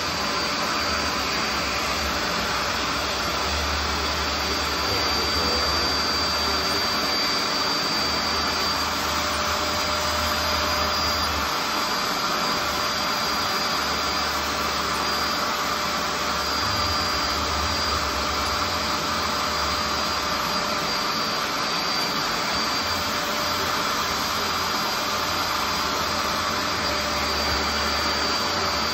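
BISSELL SpotClean Pet Pro portable carpet cleaner running steadily, its motor sucking air and water through the hand tool as it is worked over a rug, with a thin high whine over the rush of suction. A low rumble comes and goes as the tool moves.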